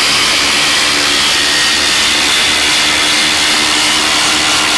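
Two Milwaukee M18 Fuel cordless impact drivers, a Gen 4 and a Gen 3, hammering at full speed together as they drive 8-inch screws down through stacked 4x4 cedar. The sound is one loud, steady, dense rattle that does not let up.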